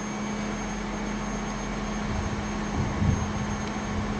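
Class 158 diesel multiple unit pulling away, its underfloor diesel engines running as a steady low drone, with a low rumble swelling a couple of times a few seconds in.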